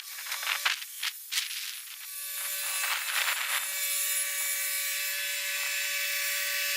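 Scattered rustling and clicks, then a steady mechanical whine with a noisy hum comes in about two seconds in, grows louder, and holds level: the Kubota L3301HST tractor running.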